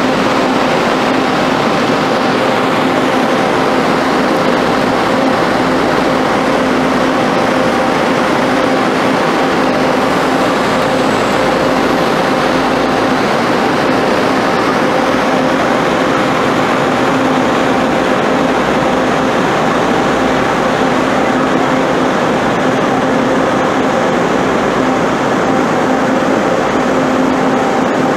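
Steady, loud mechanical rumble and rushing noise with a constant hum. It holds unchanged throughout, with no distinct events.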